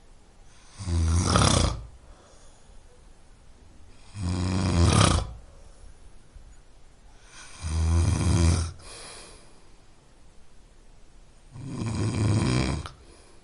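A man snoring: four snores, each about a second long, coming roughly every three and a half seconds, with quiet breathing gaps between them.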